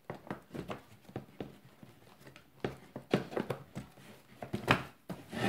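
Irregular clicks and knocks of a Hohner melodeon being handled as its wooden end pieces are fitted back onto the bellows frame, with louder knocks about three seconds and nearly five seconds in.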